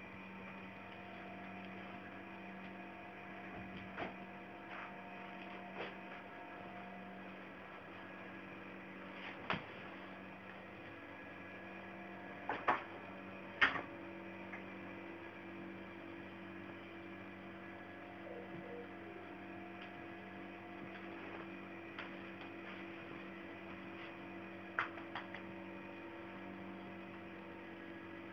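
A steady electrical-sounding hum made of several even tones, with a few short clicks and knocks scattered through it, the loudest two close together about halfway.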